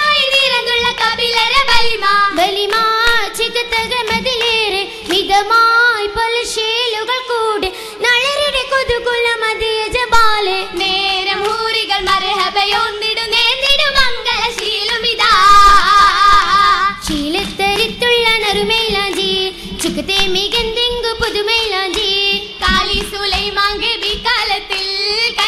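Girls' voices singing an Oppana song, a Mappila-style Malayalam song, with the dancers' rhythmic hand claps marking the beat.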